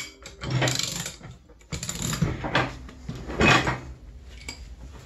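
Ratchet and socket clicking in three short runs of strokes, working the bolt in an Arctic Cat snowmobile's primary clutch.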